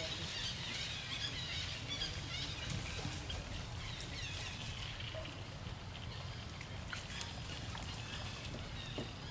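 Outdoor pond ambience: high chirping calls, thickest in the first couple of seconds, over a steady low rumble, with a few faint splashes as monkeys swim through the water.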